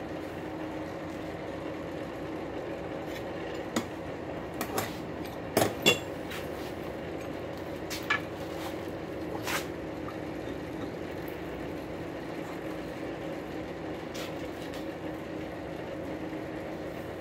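Several sharp metal clanks from a bench vise and pipe wrench as a hot rail spike is clamped for twisting, the loudest about six seconds in, then only a steady mechanical hum.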